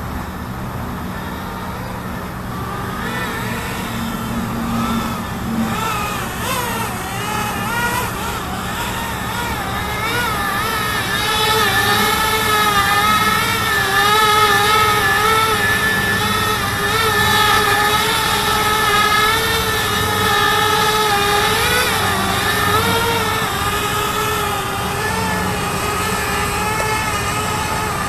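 iFlight Archer X5 FPV quadcopter's motors and propellers buzzing in flight, the pitch wavering up and down constantly with throttle changes. It grows louder a few seconds in and is loudest in the middle as the quad passes close.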